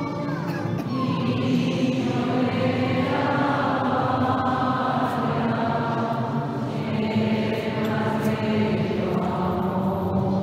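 Many voices singing a hymn together in long, held notes.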